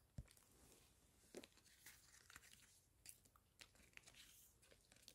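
Faint, scattered clicks and light rustles of glossy photocards and paper inserts being handled and shuffled on a table.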